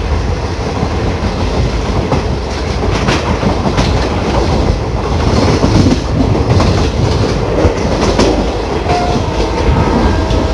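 Passenger train coach running at speed, a steady low rumble and rush of air with wheels clicking over rail joints now and then, heard at the coach's open door.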